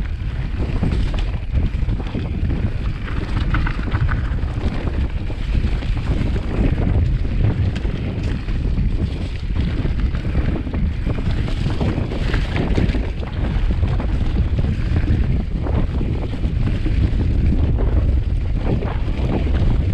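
Wind buffeting the microphone over a continuous low rumble, with scattered rattles and knocks, as from a mountain bike being ridden over a trail.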